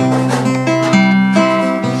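Acoustic guitar played alone, no singing: single notes moving through a melody about every half second, with a strummed chord shortly after the start.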